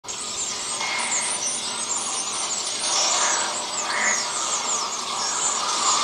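Dense shrieking of a large flock of birds, used as a horror-film sound effect: many high chirps and squeals overlapping without a break.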